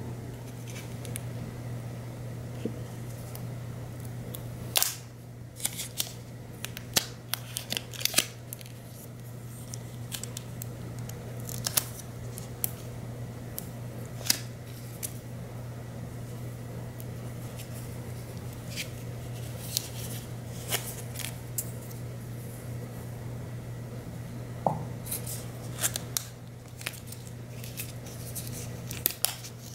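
Scattered sharp clicks and taps of hands handling an Apple Watch Hermès, its steel case, leather band and metal band connectors and buckle, over a steady low hum.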